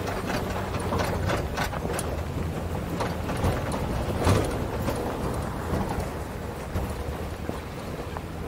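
Pickup truck driving along a rough dirt trail: a steady low engine hum under tyre noise on gravel, with clattering knocks and rattles from the truck jolting over bumps, thickest in the first two seconds and again around four seconds in.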